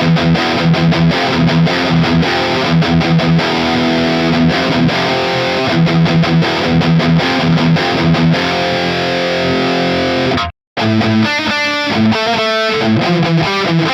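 Electric guitar through distortion playing a riff with chugging low notes. About ten seconds in it cuts off abruptly for a split second, then resumes with a passage of separate picked notes.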